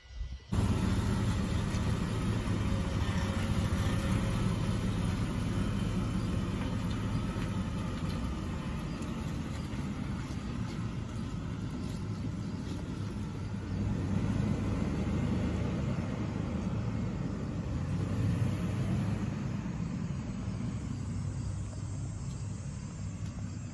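A 1998 Chevrolet Astro van's 4.3-litre V6 running as the van pulls away and drives off, with a steady low rumble that swells briefly twice.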